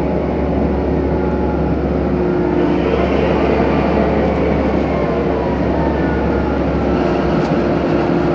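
8-ton excavator's diesel engine running steadily under working load, a low drone with a steady whine over it.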